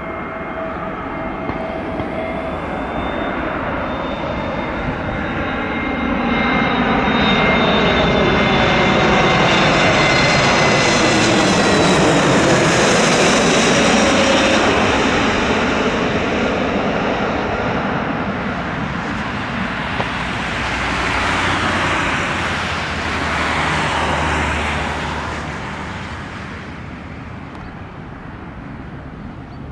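Airbus A320-family jet airliner passing low overhead on final approach with its engines running. The roar builds to a peak with a whine that falls in pitch as it goes by, then fades. A second, smaller swell of engine noise follows after it touches down on the runway.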